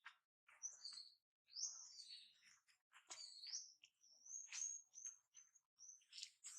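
A quick series of short, high-pitched animal chirps and squeaks, some rising or falling and a few held briefly on one high note.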